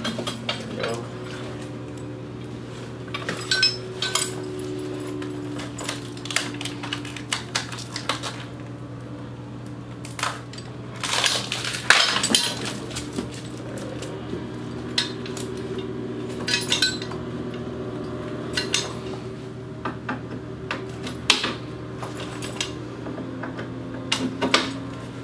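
Metal paramotor frame tubes and fittings clinking and knocking together as they are handled and fitted, in irregular clatters, over a steady low hum.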